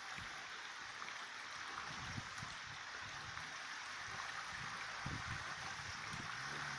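Steady rush of running water, with a faint low engine hum from the Mitsubishi Pajero Sport crawling over the rocks coming in about halfway through.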